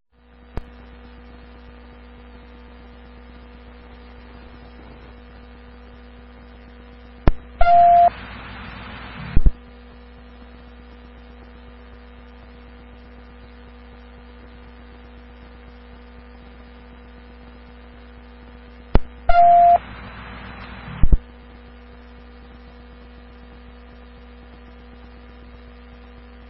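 Police radio scanner audio: a steady electrical hum, broken twice about twelve seconds apart by a keyed transmission with no voice. Each opens with a click and a short beep, carries a second or so of static, and cuts off with a click.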